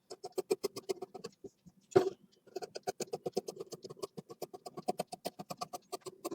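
Tailor's scissors cutting through blouse fabric in quick, even snips, about seven a second. The snipping pauses briefly, with one louder knock about two seconds in, then carries on.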